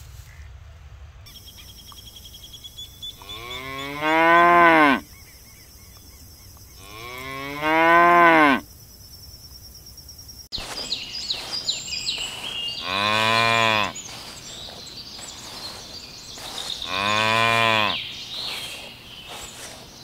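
Cattle mooing: four long moos, two in the first half and two more after about ten seconds, each rising and then falling in pitch. The first pair is higher-pitched than the second.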